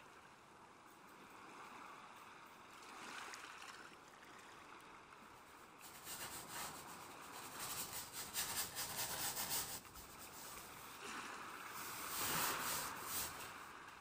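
Paintbrush rubbing oil paint onto canvas: a soft scrubbing that turns into a busier run of quick, scratchy strokes about halfway through.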